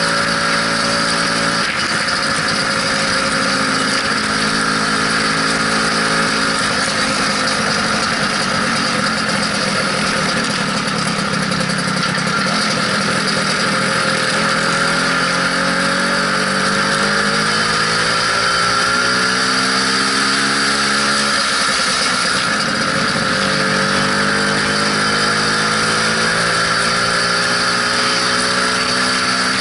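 Lambretta SX200 scooter's two-stroke single-cylinder engine running under way over a steady hiss; its pitch climbs for several seconds past the middle, then drops suddenly and settles again.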